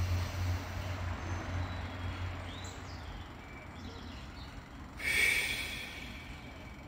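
A woman breathing slowly and audibly in a paced breathing exercise. About five seconds in comes a strong breath blown out through pursed lips. Faint bird chirps and a low hum that fades over the first few seconds sit in the background.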